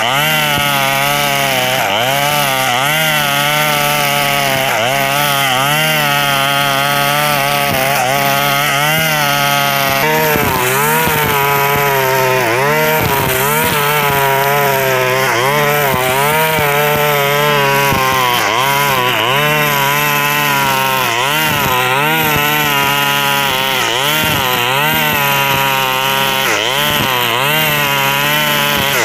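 Two-stroke KNC 4400 brush cutter running under load while cutting tall grass, its engine pitch rising and falling every second or two. Its exhaust is rusted through and full of small holes, which gives it a loud droning 'ngong-ngong' like an old warship.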